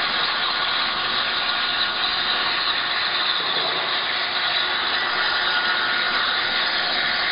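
CNC plasma cutter's torch running through a cut: a continuous, even hiss, with a faint steady whine in it.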